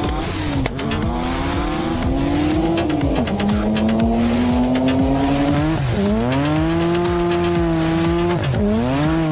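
Drift car's engine revving hard with tyres squealing. The engine pitch climbs steadily, then falls away sharply and picks up again, about three times.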